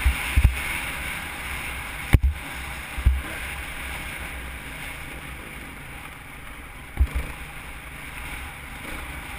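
Dirt bike riding a rough desert trail, heard from a helmet-mounted camera: engine and wind rush with a few low thumps as the bike hits bumps, slowly getting quieter.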